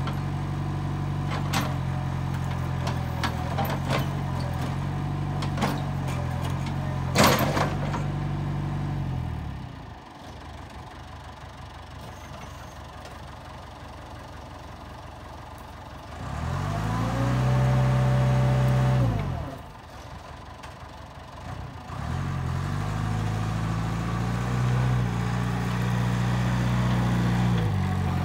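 1989 Caterpillar 416 backhoe's diesel engine running under working load, with a sharp clank about seven seconds in. Around ten seconds it drops to idle. It revs up briefly near seventeen seconds and falls back, then climbs to working speed again from about twenty-two seconds.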